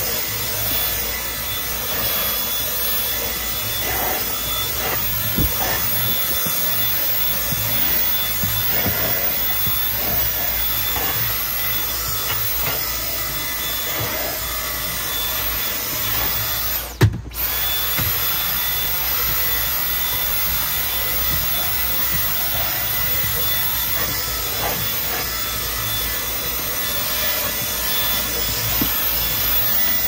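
Dyson V10 Animal cordless stick vacuum running steadily with its motorised rotating brush head over carpet: a high motor whine over rushing suction. A little past halfway the sound briefly drops out, with one sharp knock.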